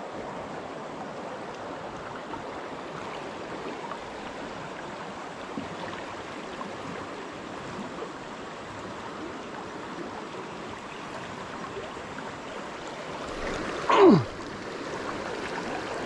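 Creek water running steadily over a shallow riffle. About two seconds before the end comes one short, loud sound that falls in pitch.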